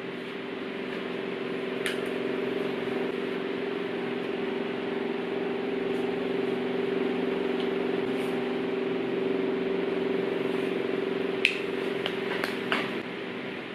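A steady mechanical hum, with a few short clicks or taps, the sharpest one near the end.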